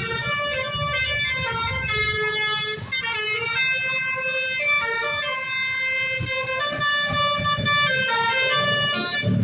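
A bus's basuri telolet horn playing a melody, its pitch stepping from note to note about every half second, with a low vehicle rumble underneath.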